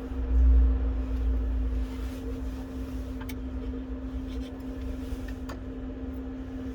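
Steady mechanical hum holding one constant tone, with a low rumble in the first couple of seconds. Two faint sharp clicks, about three and five and a half seconds in, come from small parts being handled during a phone reassembly.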